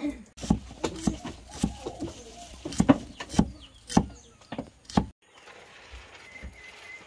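A cleaver chops shallots on a thick round wooden chopping block: a run of irregular knocks, roughly two a second, which stops suddenly about five seconds in. A quieter stretch with a faint steady high tone follows.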